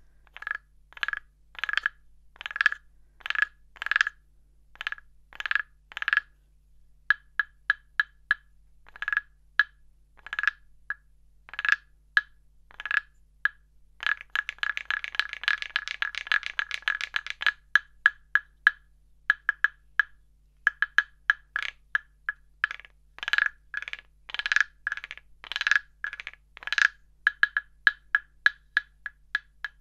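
Large carved wooden frog scraper (frog guiro) played with its wooden stick: a long series of short, woody clacking strokes in an uneven rhythm, each with the same hollow ring. Around the middle comes a longer stretch of fast rattling clicks.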